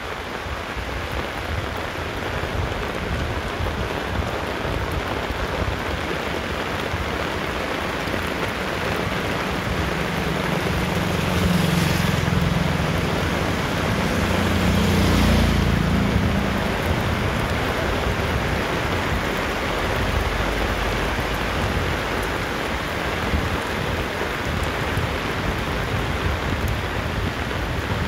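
Steady rain falling on a wet road. About halfway through, a motorcycle engine swells and fades as it passes close by.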